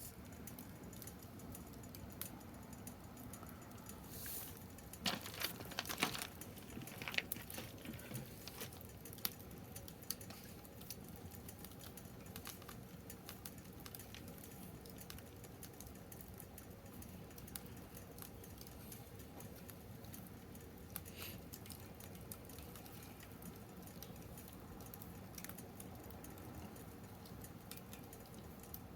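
Wood fire crackling in a fire pit: irregular sharp pops and ticks over a soft steady hiss, with a flurry of louder pops between about four and nine seconds in.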